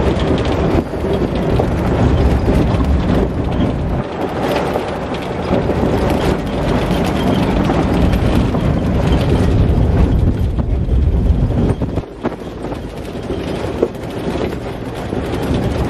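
Open-sided tour jeep on the move, its engine and road noise mixed with wind buffeting the microphone; the noise drops briefly about twelve seconds in.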